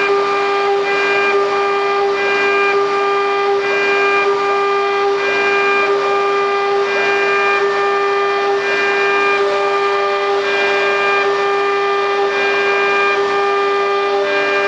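Spindle of a QS6090 CNC router running with a loud, steady whine while it cuts. Higher tones above it keep starting and stopping every second or so as the machine's axis motors move.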